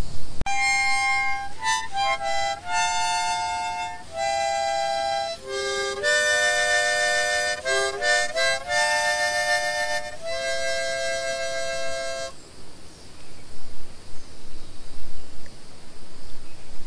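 Harmonica played by hand: a slow tune of held single notes and two-note chords, stopping about twelve seconds in.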